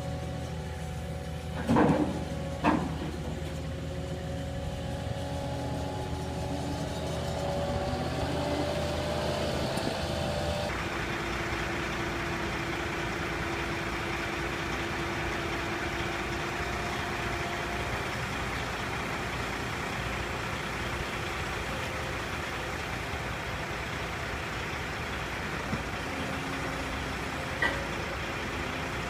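Caterpillar 299D XHP compact track loader's diesel engine running as it carries steel building framing on its forks, with two sharp metal knocks about two seconds in. About ten seconds in the sound changes abruptly to a louder, rougher engine running steadily, with a couple of light knocks near the end.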